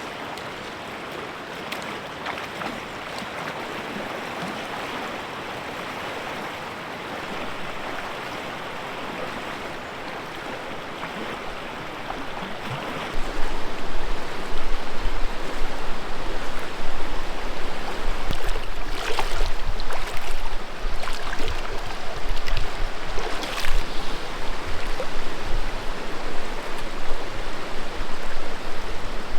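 River water rushing, a steady noise. About halfway through it becomes much louder and closer, with a low rumble beneath it.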